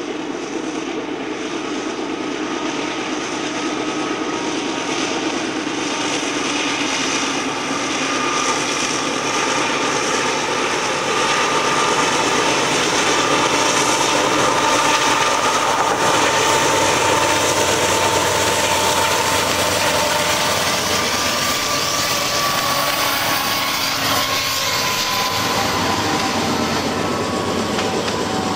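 Diesel locomotives of a CN freight train, a GE unit and an EMD SD60F, working as they pass, with a steady high engine whine. The sound grows louder over the first dozen seconds as the units come by, then freight cars rolling along the rails follow.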